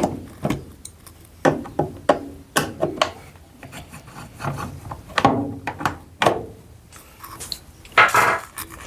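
Irregular knocks, rubs and scrapes of hands working on the plastic top cover and control-board housing of a top-loading washing machine, with a louder scrape near the end.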